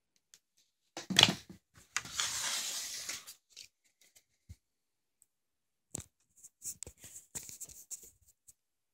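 Handling noise from a firework rocket and its plastic wrapping held close to the microphone: a sharp knock, about a second of rustling, then scattered clicks and short rustles.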